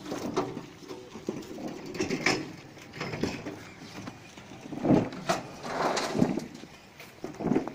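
Irregular clattering and knocking of turmeric rhizomes being tipped from metal basins into a turmeric boiler's cooking drum, with a longer rattling pour a little past halfway.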